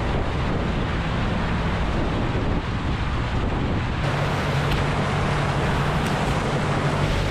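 Four-wheel drive pushing along a flooded, muddy track: a steady rush of water and mud churned up by the tyres, with wind buffeting the outside microphone. The engine's low hum comes through more clearly about halfway through.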